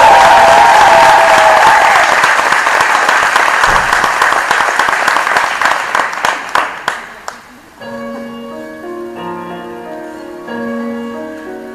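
Audience applauding in an ice arena, with a long whistle over the first two seconds. The clapping thins out and stops about seven and a half seconds in. Slow music with held notes then begins.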